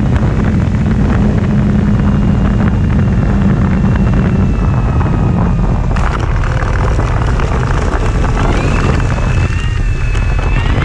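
Loud wind rush on the microphone, with the thin whine of an electric RC plane's motor over it. The whine's pitch glides up about eight seconds in and again near the end.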